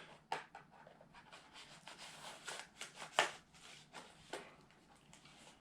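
A utility knife cutting packing tape on a cardboard box, with scattered scratches and clicks of the cardboard being handled; the sharpest click comes about three seconds in.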